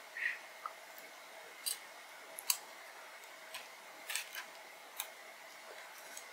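Hand-held vegetable peeler scraping skin off a raw potato in short, sharp strokes at uneven intervals.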